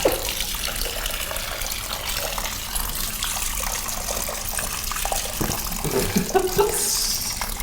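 Liquid pouring steadily into a kitchen sink filled with mixed drink: box wine still running from its spout into the jungle juice.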